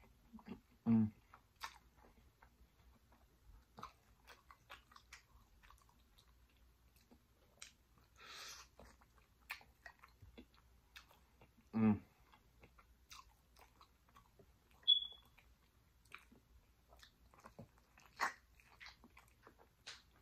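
Close-miked eating of jerk pig tails: wet chewing and many fine mouth clicks as meat is chewed off the bone. Two brief low hums, about a second in and near twelve seconds, a short sucking hiss near eight seconds and a short high squeak about fifteen seconds in.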